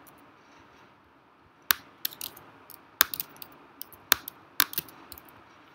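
Computer keyboard keys tapped in a few short, irregular runs: about ten sharp clicks.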